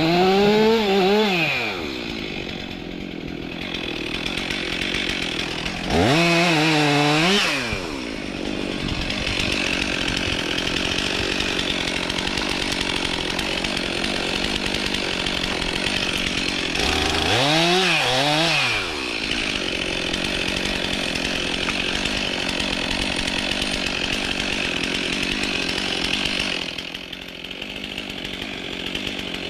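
Stihl MS 362 C two-stroke chainsaw revving up and back down three times, and running steadily between the revs while cutting birch wood.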